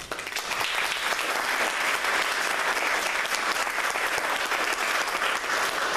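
Audience applauding, breaking out all at once.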